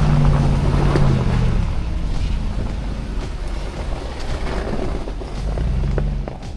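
Lexus GX470's 4.7-litre V8 running under way with a low rumble; its engine note is strong for the first couple of seconds, then falls away and rises again briefly near the end.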